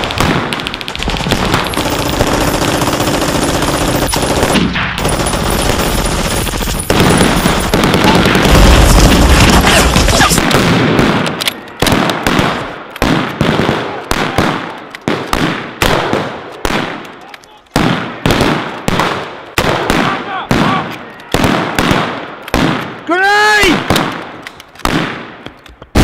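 Heavy gunfire from machine guns and rifles: dense and continuous for about the first ten seconds, then thinning to separate shots, roughly two a second. Near the end a brief whine rises and falls among the shots.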